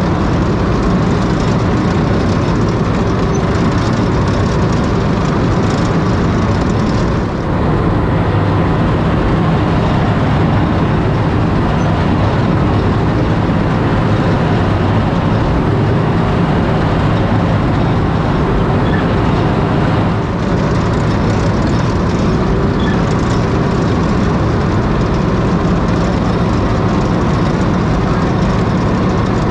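M3A1 Stuart light tank driving, its Continental W670-9A seven-cylinder radial engine running steadily and loudly under way.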